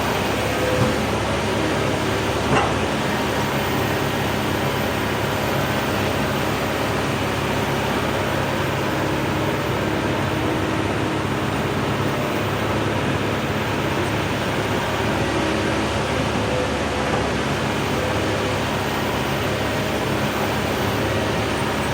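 Hydraulic excavator's diesel engine running steadily under load, a constant mechanical drone, with two light knocks in the first few seconds.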